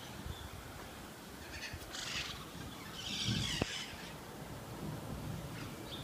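White-throated magpie-jays giving two short harsh calls, about two and three seconds in, the second louder and ending in a sharp click.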